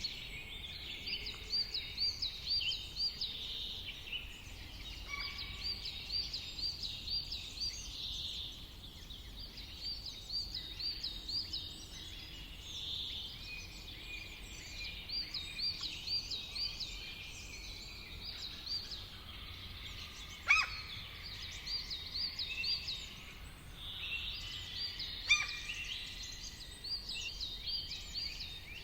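Several birds singing together, one repeating a quick run of high, looping notes over and over while others chirp and trill between them. Two sharp snaps cut through, about two-thirds of the way in and again a few seconds later.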